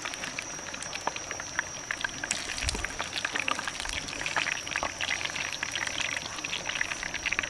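Chicken wings frying in oil in a wok over a wood fire, a dense steady crackling sizzle, with a steady high-pitched tone running under it.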